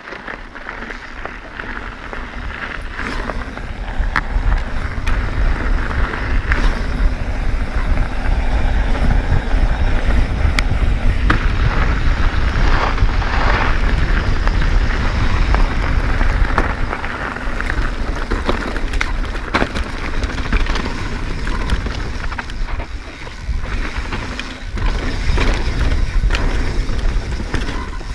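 Mountain bike riding fast downhill over gravel and dirt: tires rolling and crunching, sharp clicks and rattles from the bike over bumps, and heavy wind buffeting the action camera's microphone. It gets louder about four seconds in as speed builds.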